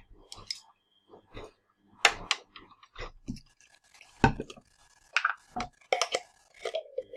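Irregular knocks, clicks and scrapes as a spoon and plastic shampoo and body-wash bottles are handled, with a few louder thuds scattered through.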